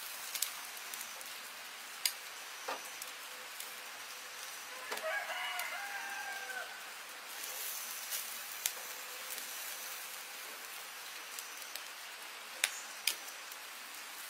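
A rooster crows once, a call of about two seconds starting about five seconds in, over a steady hiss with scattered sharp pops.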